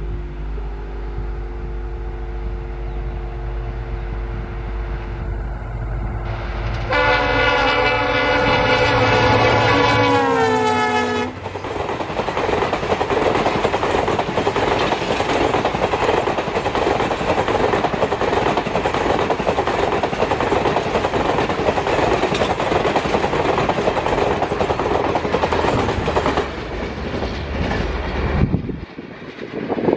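A WDP4B diesel-electric locomotive (EMD 16-cylinder two-stroke engine) approaches with a steady engine hum. About seven seconds in it sounds its multi-tone horn for about four seconds, and the pitch drops as it passes. Then the coaches rush by with wheels clattering over the rail joints, loud and steady, easing off near the end.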